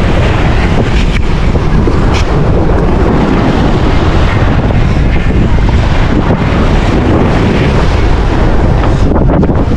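Loud, steady wind buffeting the camera microphone, with sea surf beneath it.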